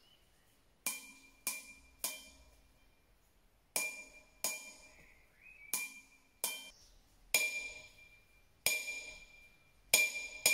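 A steel anvil struck about eleven times at uneven intervals, each hit a sharp clang followed by a high metallic ringing that dies away within a second or so.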